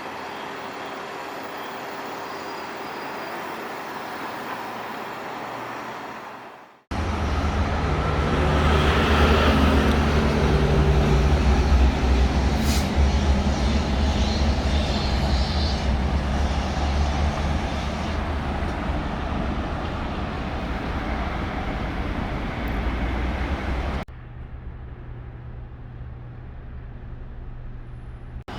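Street traffic noise that breaks off abruptly about seven seconds in, followed by a loud, low vehicle engine rumble that swells and then eases as it passes. Near the end it cuts sharply to a quieter, steady engine hum.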